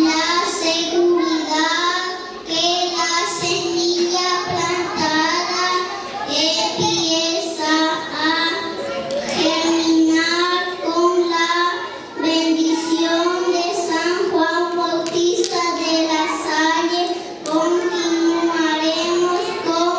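A young girl singing solo into a handheld microphone, a melody of held notes in phrases separated by brief pauses.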